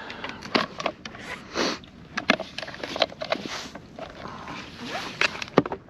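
Close-up handling noise: irregular sharp knocks and clicks with a few short rustles or rushes, as a freshly caught fish and fishing gear are handled.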